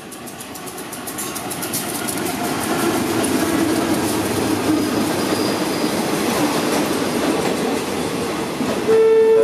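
A diesel locomotive and its passenger coaches pass close by, the wheels clicking over rail joints as the rumble of the train grows louder. Near the end a loud steady tone of several pitches starts suddenly.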